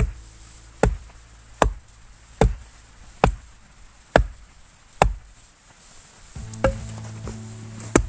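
Axe splitting firewood: a steady series of about nine sharp chops, each less than a second apart.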